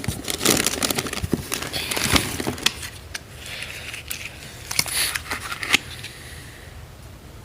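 Plastic snack wrappers and packaging crinkling and rustling as they are handled, with scattered clicks and taps. Busiest over the first three seconds, then a few more bursts of crinkling before it settles.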